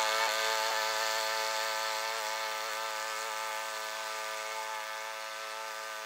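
Kohler Command Pro gasoline engine of a remote-controlled tracked slope mower running steadily at high speed as the mower climbs a steep grass slope, with an even pitch throughout.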